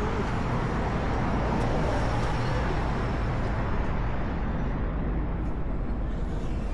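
Road traffic: a steady low rumble, with a vehicle passing that swells about two seconds in and then fades.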